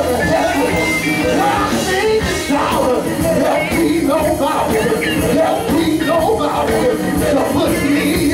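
Live gospel music: a male vocal group singing into microphones over a band of drums, guitar and keyboard, heard through the church sound system.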